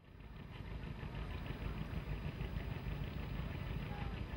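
A boat's motor running steadily with a deep rumble, fading in over the first second.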